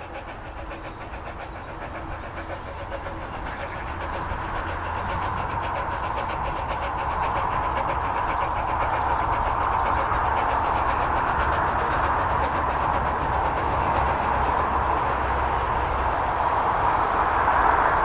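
Narrow-gauge steam locomotive Sir Haydn (Talyllyn No. 3, an 0-4-2 saddle tank) working a train of coaches on 2 ft 3 in track, its running growing steadily louder as it approaches and loudest near the end.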